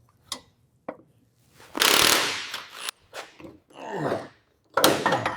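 Workshop noises from work on an old engine: two sharp knocks, then a string of short noisy bursts, the longest lasting about a second.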